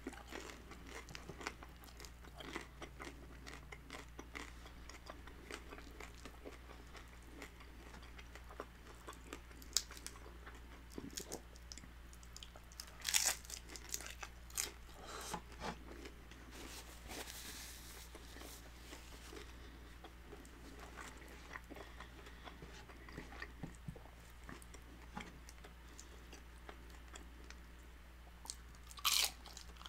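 Crunching and chewing as crispy fried birria tacos are bitten into and eaten, with scattered crackles and wet mouth sounds. A louder run of crunches comes about 13 seconds in, and another near the end.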